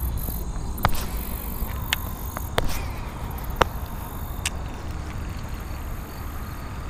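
Wind rumbling on the microphone, with a handful of sharp clicks at irregular intervals, about one a second.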